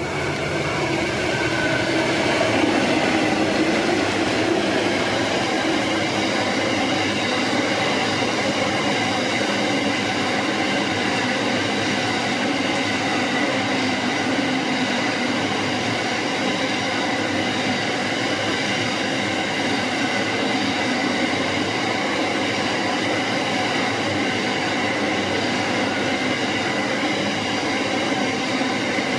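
Freight train of loaded coal hopper wagons rolling past at close range, steady wheel-on-rail rumble with faint steady high tones over it. It grows louder over the first few seconds as the locomotive comes by, then holds level as the wagons pass.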